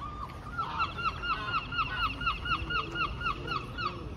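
Seagull giving its long call: one drawn-out opening note, then a loud, rapid run of yelping calls, about five a second, for some three seconds.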